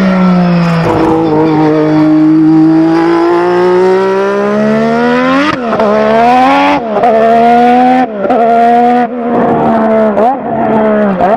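McLaren Honda MP4/4's turbocharged V6 engine running hard. Its pitch climbs steadily for several seconds, then drops sharply about once a second through a run of quick gear changes.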